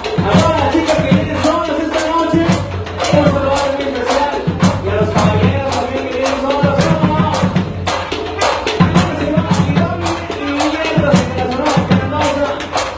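Tropical band music, typical of a sonora-style cumbia group, with a bass line, melody and a steady percussion beat of about three strokes a second.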